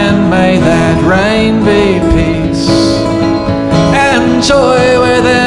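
Two acoustic guitars playing a slow folk song, with a man's voice singing a melody over them.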